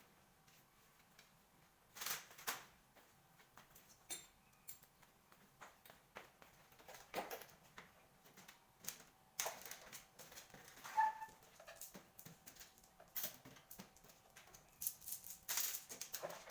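Scattered clicks, taps and knocks of tools and parts being handled on a workbench, with a short beep about eleven seconds in.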